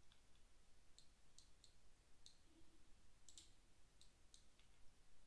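Faint, irregular clicks of a computer mouse, about a dozen scattered through, over near-silent room tone.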